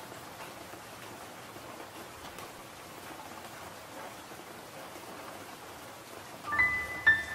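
Rain falling as a steady, even hiss, a rain ambience under the soundtrack. About six and a half seconds in, clear, ringing mallet-percussion notes come in, one after another.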